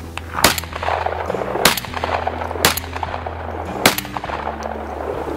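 Shotgun fired four times in a steady string, about one shot a second, over background music.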